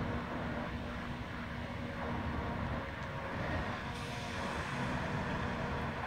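Diesel engine and hydraulics of a Tigercat 250C knuckleboom log loader running steadily while it works its boom, heard at a distance as a low drone with a few steady tones.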